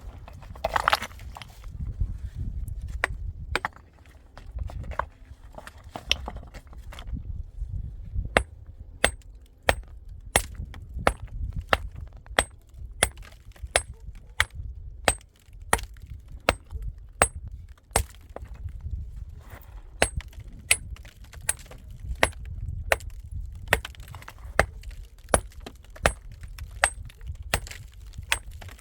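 A steady series of sharp blows, about one and a half a second, starting about eight seconds in after a few scattered knocks, each strike with a faint high ring.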